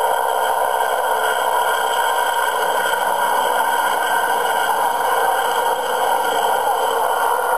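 Ford Trimotor's three radial engines running in a steady drone, heard on an old recording with little bass.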